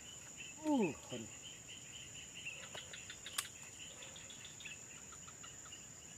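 Insects chirping in rapid repeated bursts over a steady high-pitched insect drone. About a second in there is a short falling voice-like call, and about three and a half seconds in a single sharp click.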